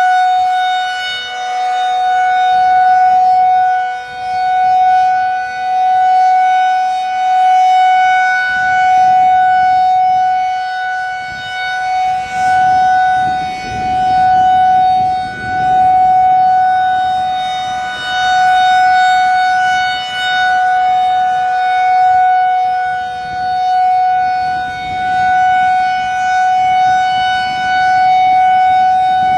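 Federal Signal 2001-DC 'Roundback' outdoor warning siren sounding a steady single-pitch alert for a monthly test. Its pitch holds level while the loudness swells and fades about every two seconds as the rotating head sweeps past.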